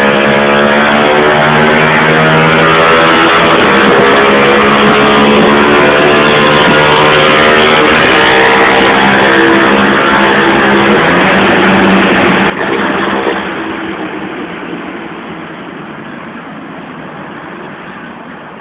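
Yamaha XTZ 125's single-cylinder four-stroke engine running loud through a Fortuna Boca 8 aftermarket exhaust in a tunnel, at a fairly steady speed. About twelve seconds in the sound cuts sharply to a much quieter engine note that fades away.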